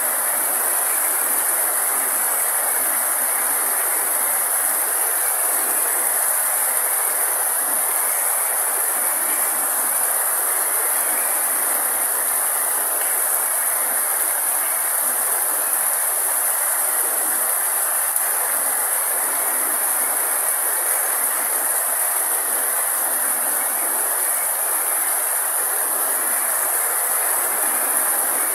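Steady rain falling on grass and leaves: an even, unbroken hiss, with a constant high-pitched hiss layered on top.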